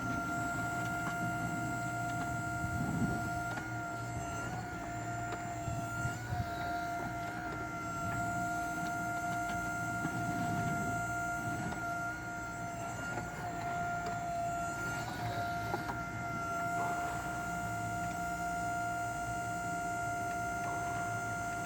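Prototype Limach E18.1 full-electric excavator working: a steady high whine from its electrically driven hydraulic pump over a shifting low rumble of the hydraulics, with a few light knocks.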